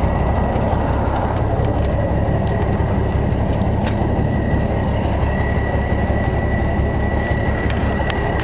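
Heavy diesel truck engine idling close by: a steady low rumble with a thin, steady high whine over it.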